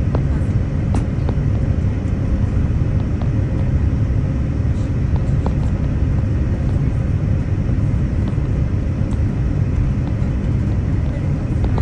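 Steady low rumble of engine and airflow noise inside the cabin of a Boeing 787-9 Dreamliner, heard from a window seat beside its GE GEnx engine, as the airliner descends on approach to land. A faint steady hum runs through it, with a few light clicks.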